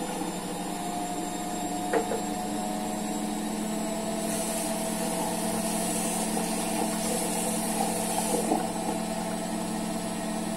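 A steady mechanical hum, like a small motor running, with a couple of faint clicks.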